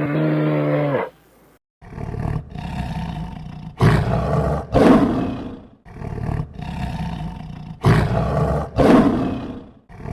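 A cow's moo ends about a second in. Then a big cat roars again and again, in a string of loud calls with short gaps, the strongest pairs about four and eight seconds in.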